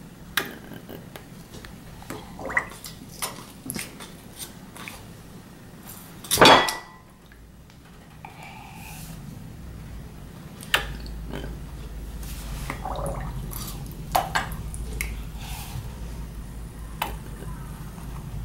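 Light clicks and taps of a plastic dropper against a silicone ice-cube tray as liquid is dripped into its wells, with one louder knock about six seconds in. A low steady hum comes in a little past halfway.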